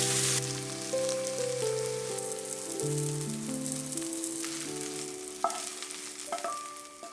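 Food sizzling as it fries in oil in a pan, loud at first and fading out about halfway through, under background music.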